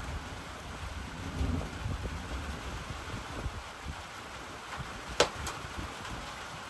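Rain falling on a roof, with a low rumble underneath. One sharp crackle from the wood stove fire about five seconds in.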